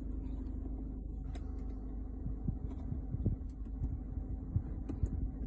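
Steady low hum inside a car cabin, with scattered clicks of the infotainment buttons and control dial being pressed repeatedly while the entertainment system fails to respond.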